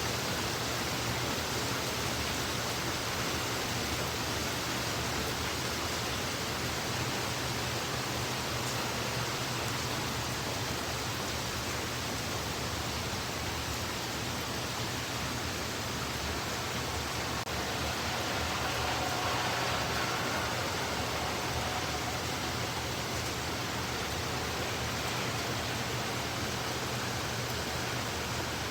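Heavy rain falling in a steady, even hiss, swelling slightly for a couple of seconds about two-thirds of the way through.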